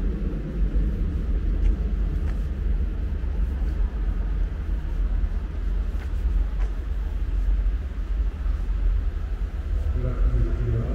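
Steady low rumble of ambient noise in a vast underground salt-mine chamber, with a few faint, short distant clicks.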